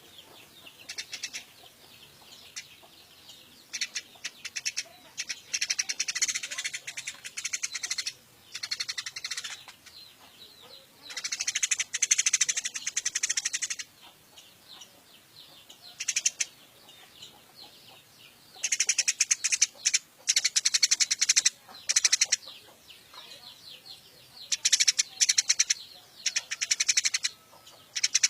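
Eurasian tree sparrow chattering in fast runs of chirps: about half a dozen bursts of one to four seconds each, with short pauses between.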